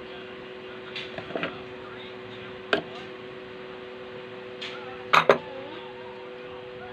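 Metal parts clinking and tapping as the flywheel and its key are fitted back onto a Singer edger sewing machine's shaft: a few sharp clinks, the loudest a quick pair about five seconds in, over a steady low hum.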